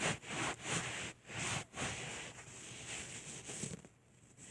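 Folded paper towel being scrubbed back and forth on carpet to lift out stuck slime: a repeated rubbing, about two or three strokes a second, that dies away near the end.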